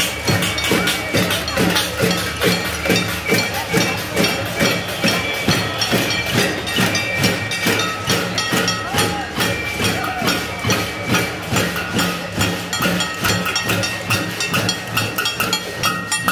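A crowd banging pots and pans in a steady rhythm, about four strikes a second.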